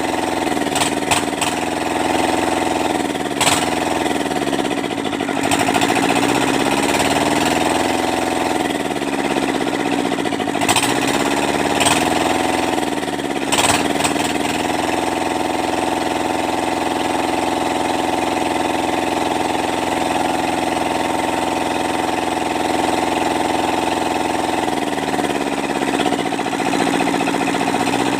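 Kubota Z751 two-cylinder diesel engine running, its speed rising and falling several times in the first half and then holding steady. A few sharp clicks or knocks sound over it in the first half.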